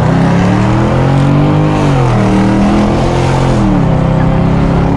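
Car engine heard from inside the cabin as the car accelerates: the revs climb, then fall as it shifts up, twice, about two seconds in and again near the end.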